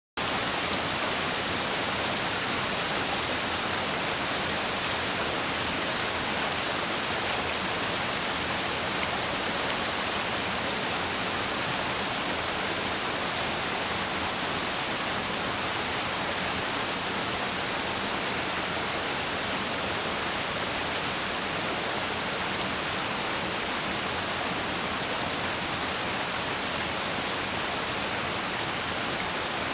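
Small waterfall cascading over boulders into a rocky stream pool, a steady rushing of water.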